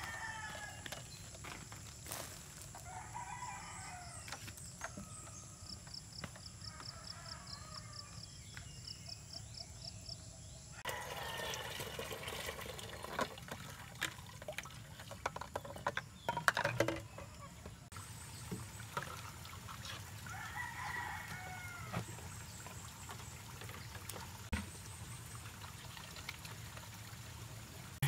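Roosters crowing several times in the background, each crow a separate drawn-out call, over steady farmyard ambience.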